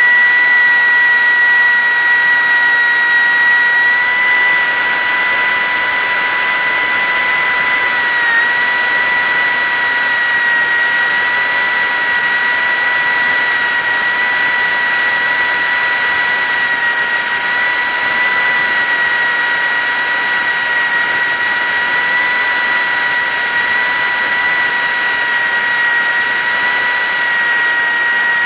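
Cessna 152's four-cylinder Lycoming engine and propeller in flight, heard from inside the cabin as a steady drone with a high, steady whine that dips briefly in pitch about eight seconds in.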